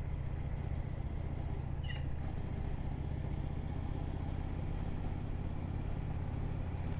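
Honda Steed 400's V-twin engine running steadily at cruise, a constant low drone under an even hiss of wind and road noise.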